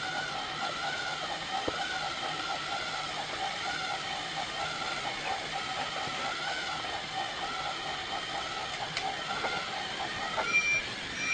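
A small electric motor whirring steadily, its pitch wavering up and down about once a second, with a faint click about two seconds in.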